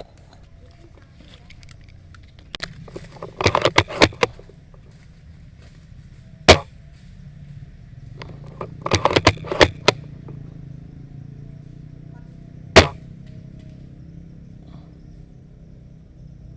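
Airsoft guns firing: two short rattling runs of rapid shots, about three to four seconds in and again about nine seconds in, with single sharp shots in between and near thirteen seconds.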